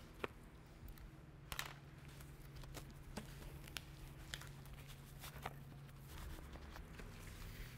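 Faint handling noises: scattered light clicks and taps at irregular times over a low steady hum.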